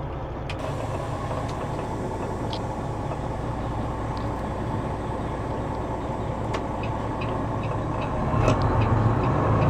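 Semi truck's diesel engine running with a steady low rumble, with a few light clicks over it; the rumble grows louder about eight seconds in.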